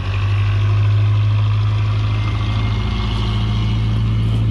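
A vehicle engine running steadily at a low, even speed; its note rises a little right at the start and then holds.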